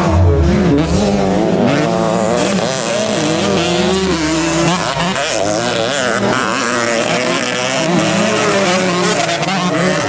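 Several racing motorcycle engines running at high revs, their pitches rising and falling and overlapping.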